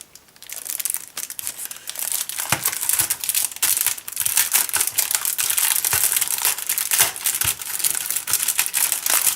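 Plastic packaging crinkling and rustling continuously as a keyboard is unwrapped, with a few light knocks.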